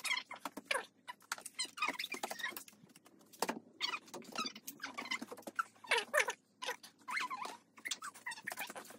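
A child's voice making many short, high-pitched squeals and giggles in quick succession, each sliding up and down in pitch.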